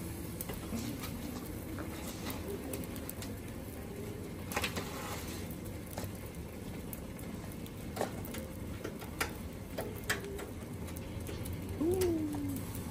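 A dove cooing in soft, low notes, the clearest coo rising and then falling near the end, with a few sharp clicks scattered through.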